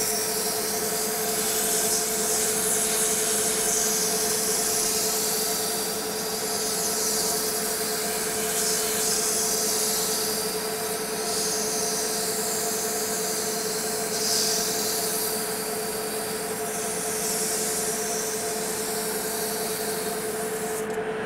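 Metal lathe running at steady speed with a constant whine, while a hand file rasps against the spinning ACME-threaded shaft, deburring the freshly cut threads by taking the wire edges off their tops. The file's rasp swells and fades as it is worked along the threads.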